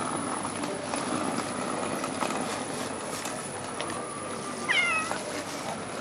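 A stray cat gives one short meow, falling in pitch, about five seconds in.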